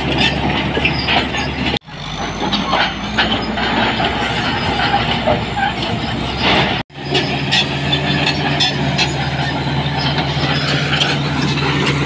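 Crawler bulldozer's diesel engine running steadily under load, with the clank of its steel tracks and rocks knocking and scraping as its blade pushes them. The sound breaks off abruptly twice, about two and seven seconds in.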